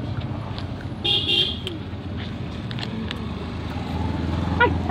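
Steady rumble of road traffic with a short vehicle horn toot about a second in.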